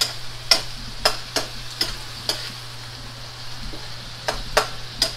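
Shrimp frying in oil in a steel wok, a steady sizzle, while a spatula stirs them and strikes the pan in a run of sharp clinks that pause for about two seconds in the middle.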